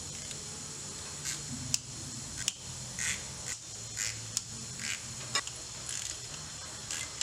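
Torx bolts being undone and lifted off a transmission's center differential casing: scattered sharp metal clicks and short rattles from the driver, bolts and casing, over a steady low hum.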